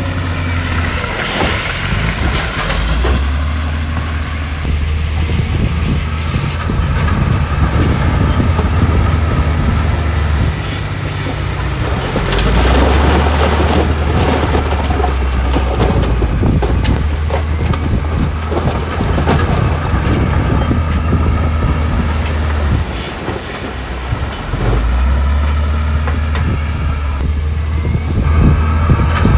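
Diesel engine of heavy earthmoving machinery, a wheel loader or dump truck, running under load, its pitch shifting several times, with continuous rattling and clanking as stone is pushed and moved.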